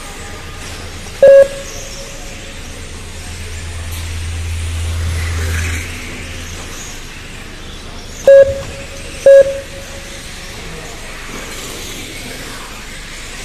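Three short, loud electronic beeps, one about a second in and two close together near eight and nine seconds in, from a race lap-counting system. Underneath runs a steady background of trackside noise with a low hum that swells about four to six seconds in and then drops back.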